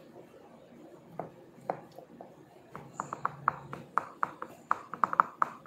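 Quick, irregular light clicks or taps, a few scattered at first, then several a second from about three seconds in.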